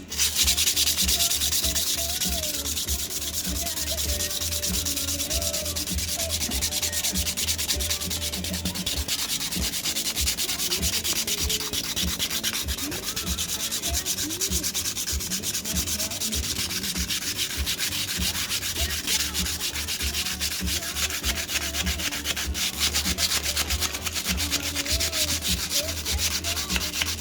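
Sandpaper steadily sanding a cured epoxy resin (Art Resin) surface to key it for a second coat.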